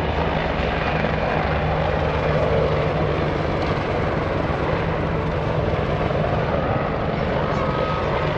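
AH-64D Apache attack helicopter flying by, its rotors and turbine engines making a steady, unbroken sound.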